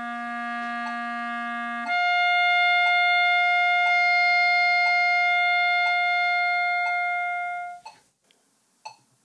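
B-flat clarinet sounding a written low C for about two seconds, then slurring up a twelfth to the clarion G and holding it for about six seconds. The G stays up when the register key is let go, sounding as an overtone, which is the sign of correct voicing and fast enough air. A metronome ticks about once a second under the held note.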